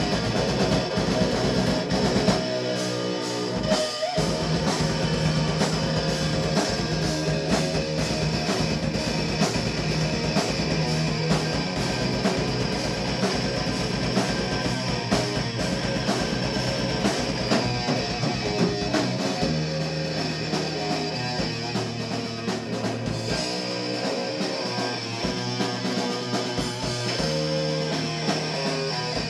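A rock band playing live: electric guitar, electric bass and drum kit together, continuous and steady.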